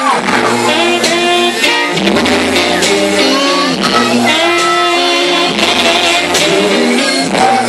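Loud music playing: a song with a singer and guitar.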